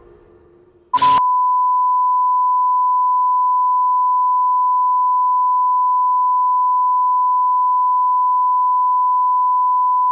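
A brief burst of noise about a second in, then a steady single-pitch test tone that holds without change: the reference tone that goes with broadcast colour bars, signalling that the transmission has ended.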